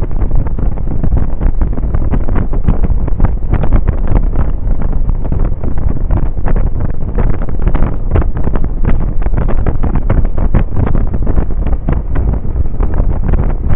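Wind buffeting the microphone of a camera on a maxi-scooter riding at road speed: a loud, constant low rumble with rapid flutter, with road and engine noise underneath.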